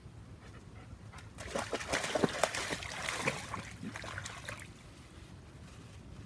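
German Shepherd dog splashing as it wades through a shallow pool. A run of splashes and sloshing starts about a second and a half in and dies down before the end.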